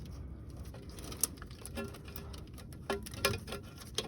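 Irregular light clicks and knocks of hand tools and metal parts being handled while working in a car's engine bay, over a low steady hum.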